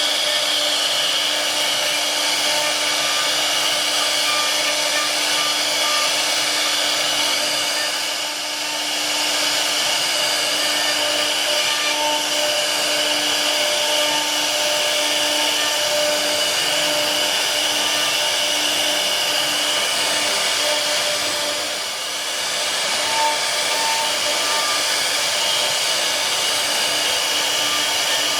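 A CNC machine's high-speed spindle running steadily with a whining hum over cutting noise. The sound briefly drops twice, about a third of the way in and again about three-quarters of the way in.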